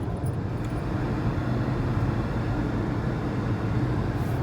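Steady road and engine noise heard from inside a moving car's cabin, a low, even drone with no change in pace.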